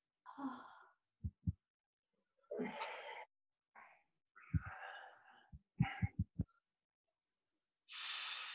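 A person breathing hard in a few short, noisy exhales, mixed with several soft, low thumps of body movement, while pressing a massage ball into the shoulder.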